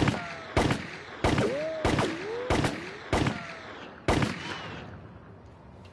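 Seven pistol shots fired in quick succession, about one every two-thirds of a second with a slightly longer gap before the last, each with a short ringing echo, into a bulletproof vest being tested on a firing range.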